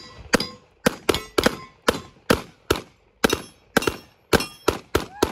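Semi-automatic pistol fired in rapid succession, a long string of about seventeen sharp shots at roughly three a second, the spacing slightly uneven.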